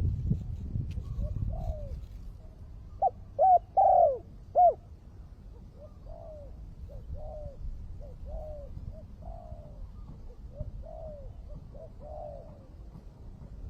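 Spotted dove cooing. There is a loud run of four coos about three seconds in, then softer coos keep repeating in short phrases almost to the end.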